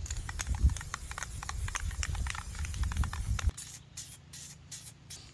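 Aerosol spray-paint can hissing, with many clicks over it, for about three and a half seconds. Then it breaks into short separate bursts of spray.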